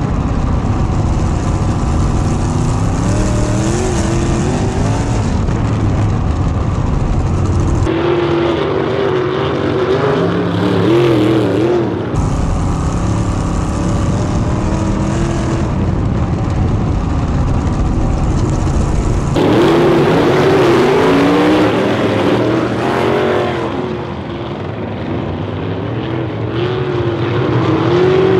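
410 sprint car V8 engines racing on a dirt oval. The sound alternates between the cockpit of one car, where the engine is under a heavy low rumble, and trackside, where several cars' engines rise and fall in pitch as they go by. The view cuts about a third of the way in, back, and again about two-thirds in.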